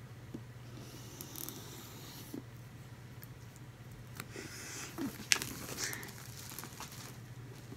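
Scissors slitting the plastic shrink-wrap on a MacBook Pro box, then the thin film rasping and crinkling as it is peeled off, with a sharp click about five seconds in.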